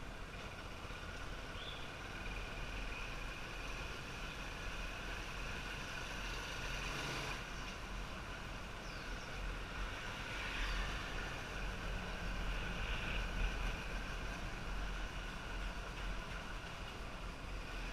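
Motorcycle on the move: steady engine and road noise, with low uneven rumble of wind on the microphone.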